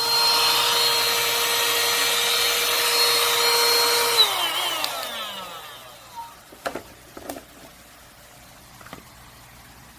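Ruienbao 12000Pa cordless handheld mini vacuum cleaner running with a steady high whine and rush of air, switched off about four seconds in, its motor winding down in a falling whine. A few sharp clicks of the unit being handled follow.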